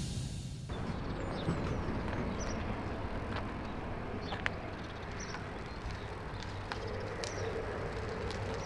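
Outdoor ambience: a steady low rumble with a few scattered short clicks and faint high chirps.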